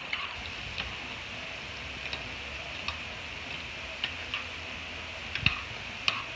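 Sliced squash, onion and sausage sizzling in a metal pan on a gas stove. A steady hiss with irregular small pops and ticks, the sharpest a little over five seconds in.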